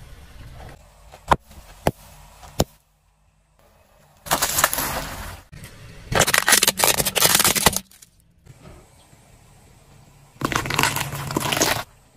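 A car tyre rolling over and crushing objects on asphalt: a few sharp snaps and clicks, then three long stretches of crunching and cracking with quieter gaps between them, including hollow plastic toys breaking and soft tomatoes squashing.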